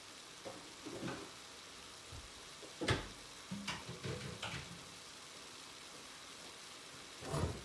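Ground beef sizzling faintly in a cast iron skillet. A sharp knock comes about three seconds in, followed by a few softer clatters and another thump near the end.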